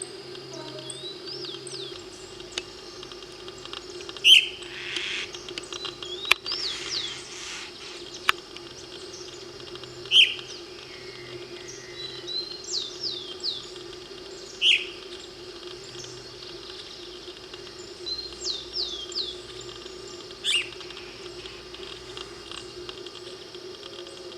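Several wild birds calling: one gives a loud, short downward note about every five seconds, and between those come quick runs of short high whistled notes. A steady low hum runs underneath.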